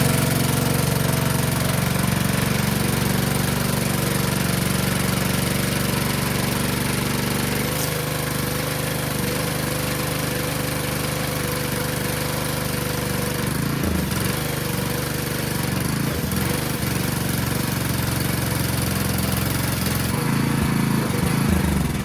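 Small gas engine of a 20-year-old pressure washer running steadily while its water pump sprays. The engine's note shifts slightly partway through, and the sound cuts off abruptly at the very end.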